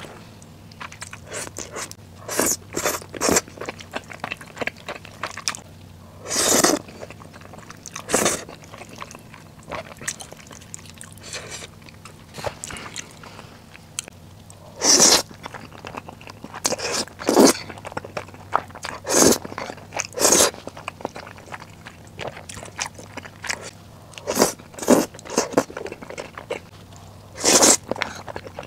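Close-miked eating of spicy instant noodles and chewy rice cakes with melted cheese: loud wet slurps of noodles, several lasting about half a second, between bursts of chewing and smacking.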